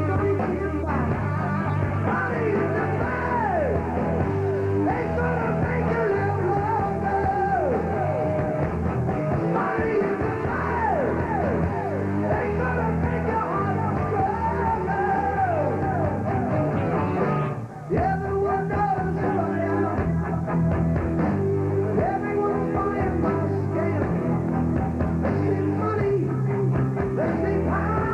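Live rock band playing: electric guitars, bass guitar and drums. The sound cuts out for a split second about two-thirds of the way through.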